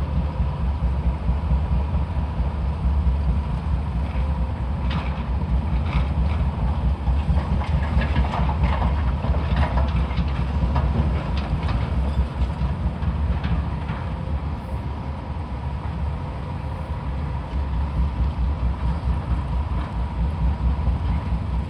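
Heavy demolition machinery at work: diesel excavator engines making a steady low rumble, with a run of clanks and knocks of metal and rubble about five to fourteen seconds in.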